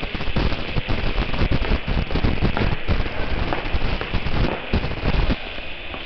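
Handling noise on a handheld camera's microphone as it is carried while walking: dense, irregular crackling and knocking with low thumps, stopping about five seconds in.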